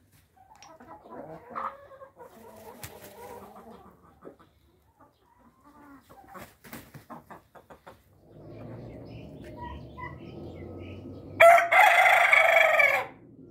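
Chickens clucking softly. Near the end a rooster crows once, loudly, for about a second and a half.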